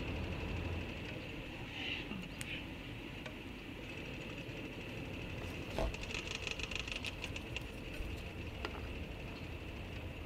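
Footsteps on loose rocks and rubble: scattered clicks, a heavier knock about six seconds in, then a quick run of rapid ticking, over a steady high-pitched hum.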